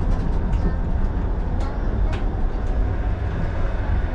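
Shonan Monorail suspended train running at speed, heard from inside the cab: a steady heavy low rumble of its rubber tyres in the overhead box-beam track and its traction motors, with a few faint sharp ticks.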